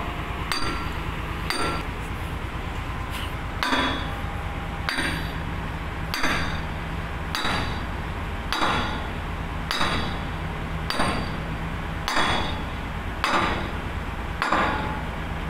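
Sledgehammer striking the steel fittings of an excavator-mounted pile-driving rig, a regular metallic clang about every 1.2 seconds, each blow ringing briefly.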